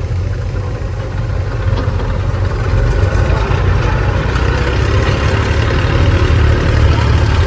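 Diesel engine of a tractor or backhoe running with a steady, even low rumble, growing louder from about three seconds in.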